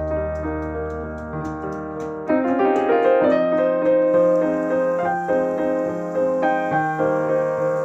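Background piano music with sustained bass notes; it grows fuller and louder about two seconds in.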